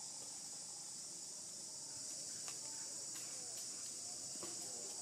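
A steady, high-pitched chorus of insects, unbroken throughout, with a few faint chirps and ticks on top.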